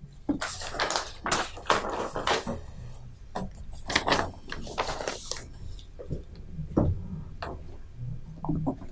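Rustling, scraping and knocking noises from objects being handled, a dense run of them for the first five seconds and then a few scattered knocks.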